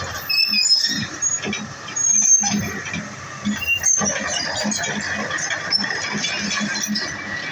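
Komatsu PC200 excavator in operation: machine running with short metallic squeals and a repeating low knock about two to three times a second.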